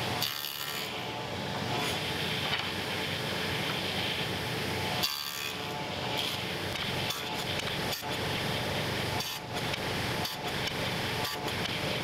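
Table saw with a dado blade stack running and cutting into a dense wenge leg to form a tenon, a steady motor hum with the rasp of the blade in the wood.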